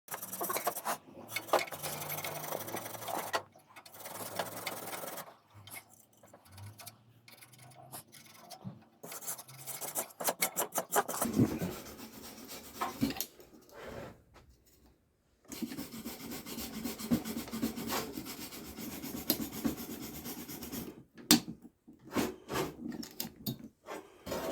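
Hand tool scraping and rubbing at the rusty metal of a car exhaust to clean off the rust, in bouts of strokes with short pauses between them. A few sharp clicks and knocks come in between the bouts.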